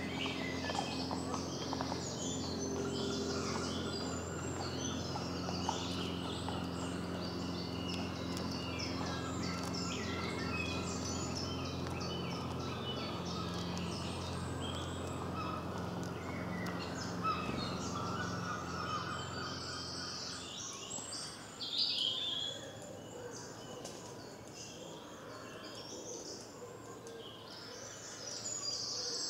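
Many songbirds singing in woodland, a dense run of short high chirps and trills, over a low steady hum that stops about two-thirds of the way through. A brief louder sound stands out soon after the hum stops.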